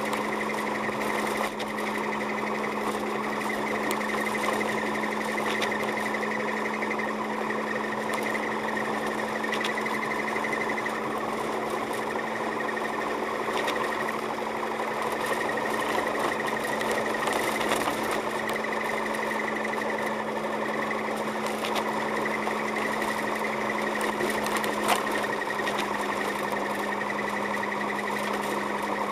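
Car driving on a snow-covered road, heard inside the cabin: a steady engine and road hum with a constant low tone and faint ticks here and there.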